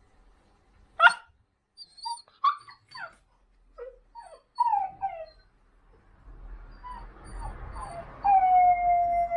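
Yellow Labrador Retriever puppy vocalising: one sharp yelp about a second in, then a string of short falling whimpers and yips, then a long steady howl starting near the end.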